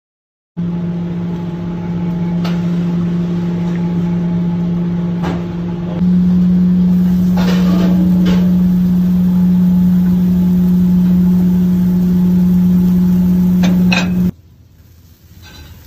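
A loud, steady electric motor hum with a higher overtone. It steps up slightly in pitch about six seconds in and cuts off about a second before the end, with a few short clicks and a brief clatter around the middle.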